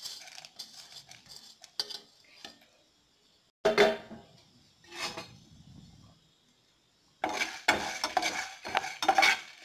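A spatula stirring and scraping dry dals, coriander seeds and dried chillies as they roast in a non-stick frying pan, the seeds rattling against the pan. A few scattered clicks and two knocks near the middle come first, and dense stirring begins about seven seconds in.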